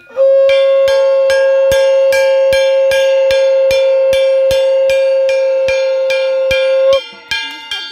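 Small hand-held bell-metal gong (kansar) beaten with a wooden stick about four times a second, each stroke ringing. Over it a conch shell is blown in one long steady note that stops about a second before the end, while the gong strokes go on.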